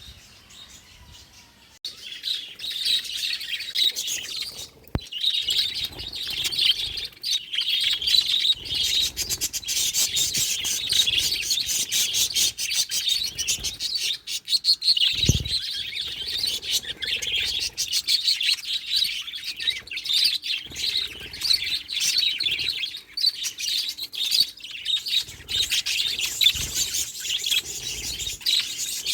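Budgerigar chirping and warbling chatter, continuous and busy after a quiet first couple of seconds, with one brief low thump about halfway through.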